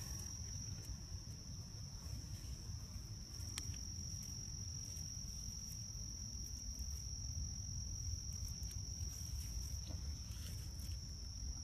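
Insects trilling in one steady, unbroken high-pitched tone, over a low rumble.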